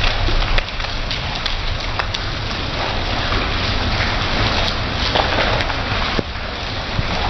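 Steady rain falling and splashing on paved ground, with a few sharp ticks of single drops.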